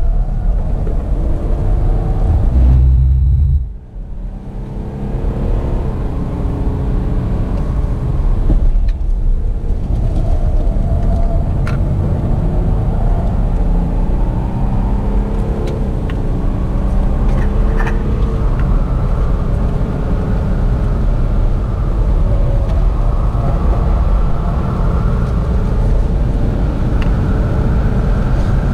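Car engine heard from inside the cabin under hard acceleration on a track lap, its pitch climbing repeatedly as it pulls through the gears. It drops away sharply for a moment about four seconds in and briefly again near nine seconds, a lift or gear change, then builds again.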